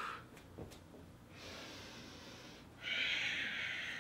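A woman breathing audibly as she flows through a yoga vinyasa: a softer breath about a second and a half in, then a louder one about three seconds in.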